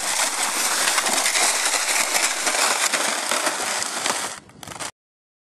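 Sled sliding over snow: a steady rough scraping hiss full of fine crackles that cuts off abruptly about five seconds in.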